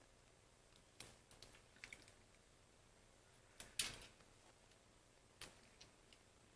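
Scattered light clicks and taps of a phone handset and small tools being handled on a workbench during repair, the loudest cluster a little under four seconds in.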